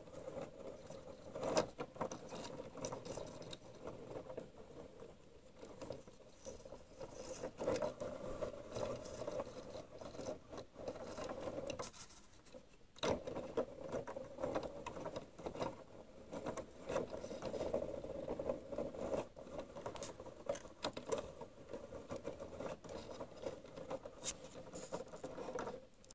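3D-printed plastic turntable turning slowly as its small wheel is turned by hand, its printed mechanism rattling, scraping and clicking with quite a lot of noise. There is a brief pause about halfway through.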